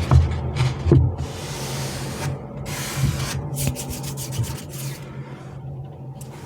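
Sweet and chocolate packaging handled by hand, rustling and crinkling in short repeated bursts, with two dull thumps in the first second, over a low steady hum.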